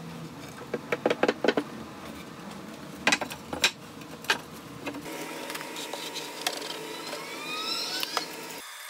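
Pine 2x4 boards knocking and clacking against each other as they are shifted and aligned by hand during a glue-up, in two short clusters of sharp wooden knocks. Near the end, a quieter stretch with faint rising squeaks.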